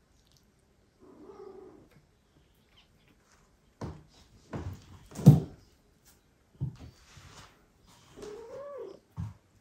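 Cat meowing twice: a short meow about a second in and a longer meow that rises and falls near the end. Several dull thumps fall between them, the loudest in the middle.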